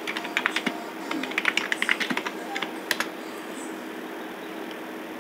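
Computer keyboard typing: a quick run of keystrokes that stops about two seconds in, followed by a sharper click or two near three seconds as the search is entered. A faint steady hum remains underneath.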